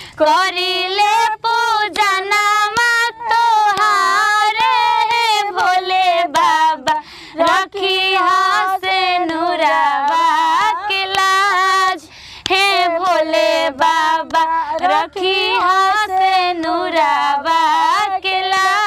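A woman singing a Bhojpuri folk song in a high voice with no instruments, holding long wavering notes with short breaks between phrases.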